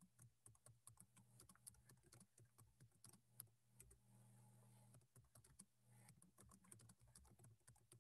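Faint computer keyboard typing: irregular, quick keystroke clicks, over a faint steady low electrical hum.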